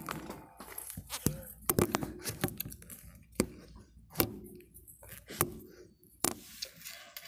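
Irregular clicks and knocks of handling noise close to the microphone, with faint voices in the background.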